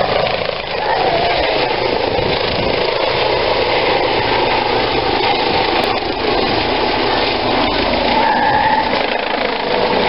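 Yellow ADAC air-rescue helicopter climbing away after take-off, its rotor and turbine noise steady and continuous.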